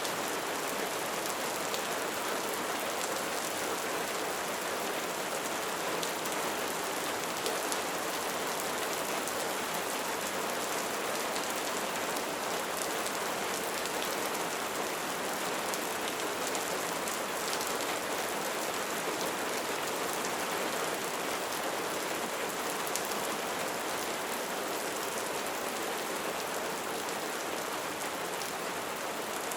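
Light rain falling steadily, an even hiss of many raindrops with faint individual drop ticks.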